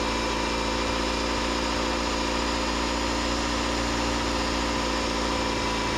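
2010 Ford Fusion gasoline engine running steadily, held at about 2,000 RPM, while SeaFoam engine cleaner is sprayed into its throttle body.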